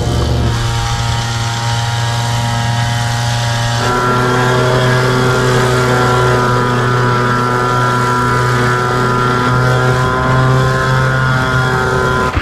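Small engine of a motorized pesticide sprayer running steadily under load, with the hiss of spray mist from the wand nozzle. The engine note shifts about four seconds in.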